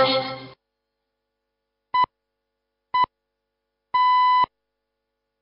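Radio time signal: two short beeps a second apart and a longer beep a second later, all at one pitch, the long beep marking the exact time. Just before, the bulletin's theme music cuts off.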